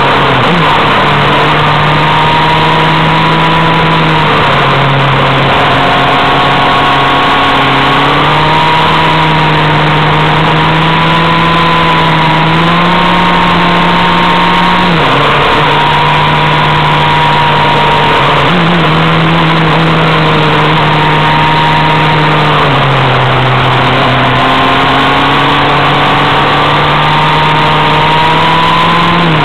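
Motorcycle engine running at steady revs. Its pitch holds level for seconds at a time, then steps or glides up and down a few times. A constant rush of wind noise runs under it.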